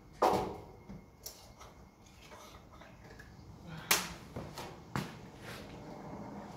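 A few sharp knocks and clunks from someone climbing on and handling the front of a 1978 Peterbilt 352 cabover truck cab. The loudest knock comes about four seconds in, with another a second later.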